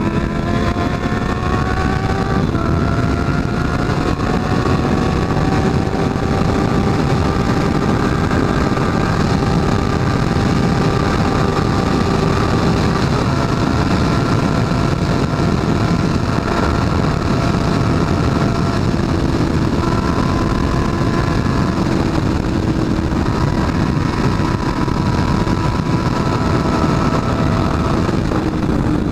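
Honda CB650F inline-four engine running at road speed. Its note rises for about two seconds and drops about two and a half seconds in, as on an upshift, then holds a fairly steady cruise with small throttle changes. Heavy wind noise rushes over the microphone.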